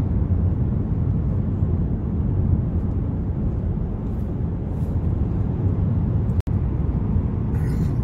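Steady low rumble of road and engine noise heard from inside a Mercedes-Benz car driving along a road tunnel. The sound drops out for an instant about six seconds in, then carries on.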